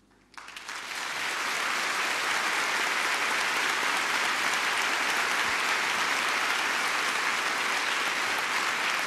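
Large audience applauding in a concert hall. The applause breaks out suddenly a moment in, swells within a second and then holds steady.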